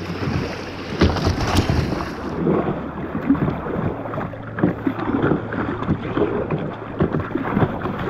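River water rushing and splashing around a kayak's hull as it runs through a riffle, with wind buffeting the microphone.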